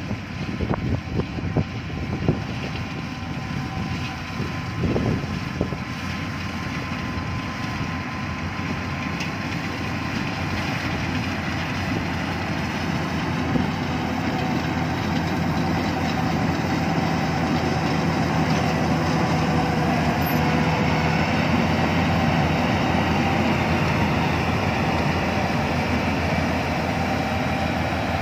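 Yanmar AW82V combine harvester's diesel engine and machinery running steadily while it harvests rice, growing louder as the machine comes closer. A few brief knocks sound in the first few seconds.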